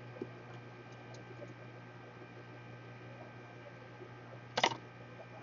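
Steady low electrical hum with a few faint ticks. A brief sharp clatter of clicks comes about four and a half seconds in.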